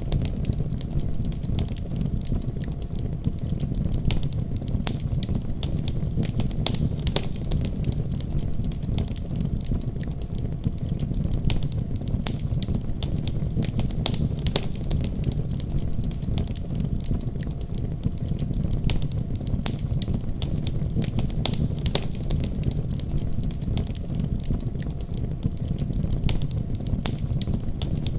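Wood fire burning in a fireplace: a steady low rumble of flames with frequent sharp crackles and pops.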